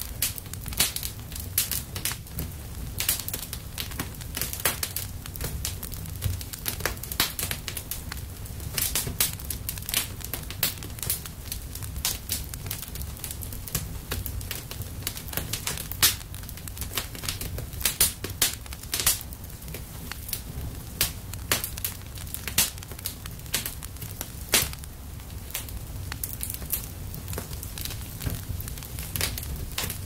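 Wood fire crackling: irregular sharp pops and snaps, several a second, over a steady low rumble.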